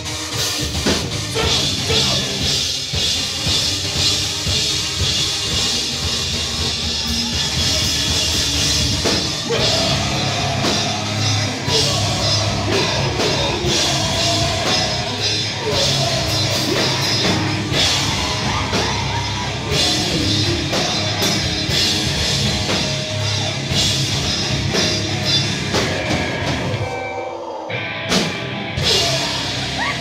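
Live rock band playing loud: distorted electric guitars, bass and a drum kit with vocals. Near the end the band drops out briefly, then comes back in.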